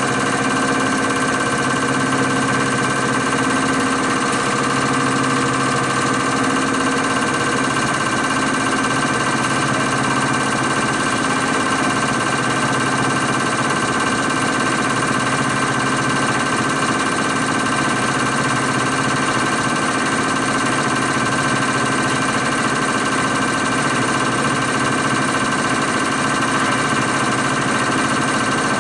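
CR926 common rail test bench running, its motor-driven high-pressure pump at 800 rpm holding 160 MPa rail pressure while a Bosch 0445120224 common rail injector fires for the full-load fuel-delivery (VLI) measurement. A loud, steady mechanical din with several steady tones.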